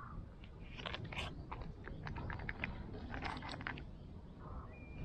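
An irregular run of light clicks and ticks, a dozen or so over about three seconds, over a low steady rumble.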